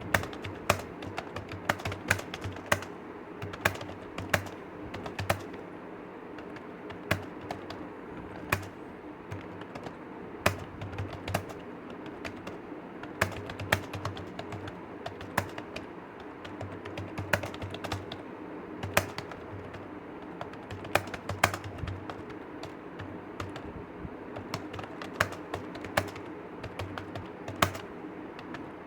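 Someone typing continuously on a computer keyboard: a fast, irregular stream of key clicks with some louder, heavier strikes every second or so, over a steady low hum.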